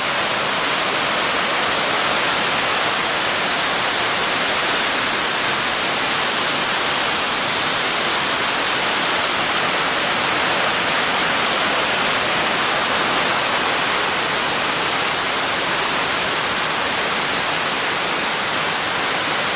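Raymondskill Falls rushing: a steady, loud roar of falling water, even throughout.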